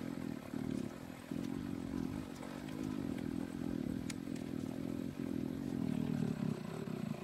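Husqvarna 531RB brush cutter's two-stroke engine running at low speed, a low uneven drone that grows slightly louder toward the end.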